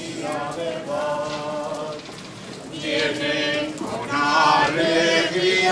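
Group of people singing a Spanish Catholic hymn together in slow, held notes; the singing grows louder about three seconds in.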